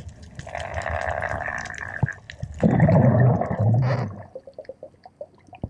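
Water rushing and gurgling around a spearfisher's underwater camera, louder and deeper about halfway through, then a light crackle of small clicks near the end.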